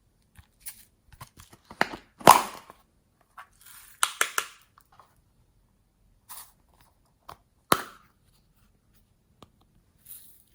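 Glossy slime being handled: scattered sticky clicks, pops and short crackles as it is pressed and pulled. The loudest pop comes about two seconds in and a cluster follows around four seconds.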